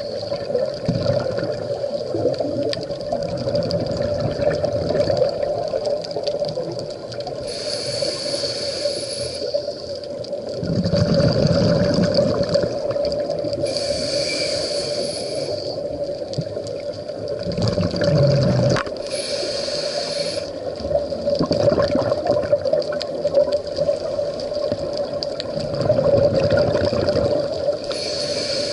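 Scuba regulator breathing heard underwater: a short hiss on each inhale, then a low burst of exhaled bubbles, repeating about every six seconds over a steady hum.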